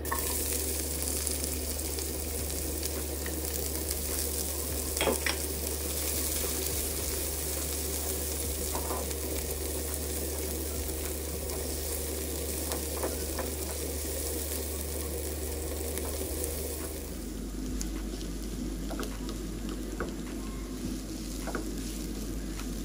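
Food sizzling as it fries in oil in a pan, with a steady hiss and a few light taps of a stirring utensil against the pan.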